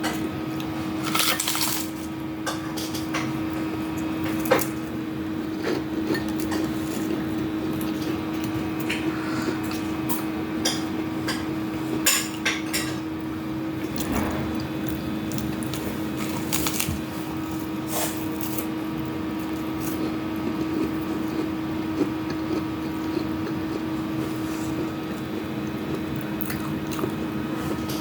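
Cutlery and dishes clinking now and then during a meal, as short scattered clicks, over a steady low hum.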